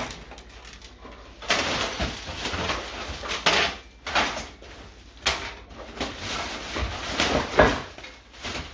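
A bag rustling and crinkling as it is handled, in irregular surges with a few sharper crackles.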